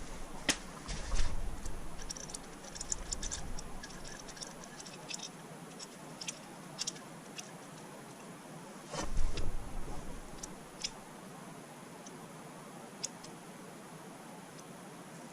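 Tools and parts being handled during hand work: scattered light clicks and ticks, with two heavier knocks and rustling about a second in and again about nine seconds in.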